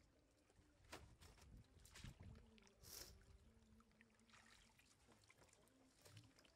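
Faint water splashes and sloshing as a blue plastic basket is dipped into a shallow muddy pool, with a few sharp splashes in the first half.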